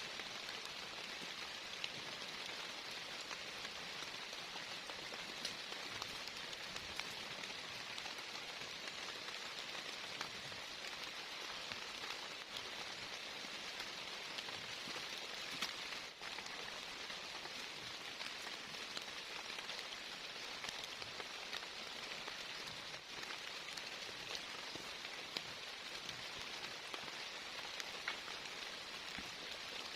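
Heavy rain falling steadily, with many separate drops ticking sharply through the even hiss.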